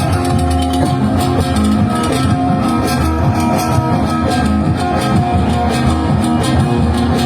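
Live party band playing an instrumental passage: a plucked guitar melody over bass and drums, with no singing.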